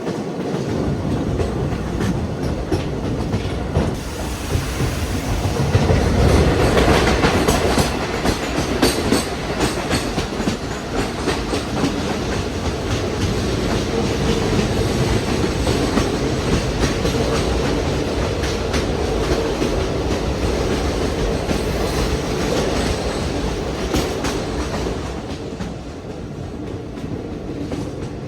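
Passenger train running on the line, a steady rumble with the wheels clicking over rail joints. It is loudest about six seconds in and eases a little near the end.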